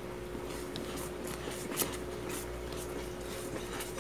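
Spatula stirring and scraping a thick, cooking condensed-milk mixture in a pan, in short repeated strokes, with one sharper click about two seconds in. The mixture is being cooked down until it starts to come away from the pan. A steady faint hum runs underneath.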